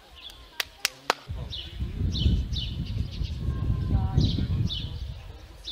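A small bird repeating short, falling chirps about twice a second. A few sharp clicks come in the first second, and a low rumbling noise starts about a second and a half in, fading near the end.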